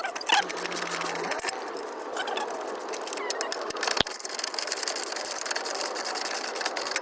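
Ratchet wrench clicking rapidly as a bolt is worked loose, with a single sharp knock about four seconds in.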